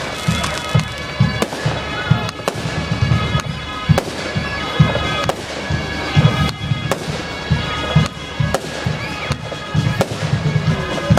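Fireworks display going off: a dense, continuous run of sharp bangs and crackles, with heavy booms underneath.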